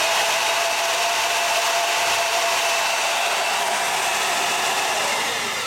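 Electric drill spinning the threaded-rod lead screw of a homemade CNC router, driving the Y-axis carriage through its square nut. It makes a steady loud whine, then the pitch drops and the drill winds down near the end.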